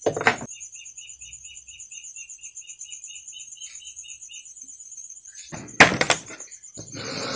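Crickets chirping in fast, steady trills, with a second trill in the first half. Over them, plastic headlight parts clack in the hands: once just after the start, and twice about six seconds in, followed by a brief rustle.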